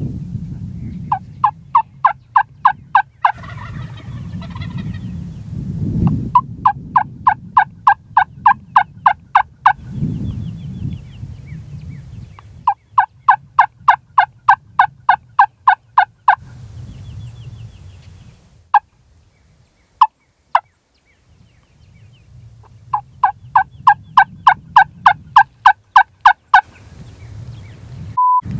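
Wingbone turkey call yelping in four loud runs of about ten to fifteen evenly spaced yelps, roughly four a second, with a few lone notes between them. A low rumble runs underneath, and a short beep sounds near the end.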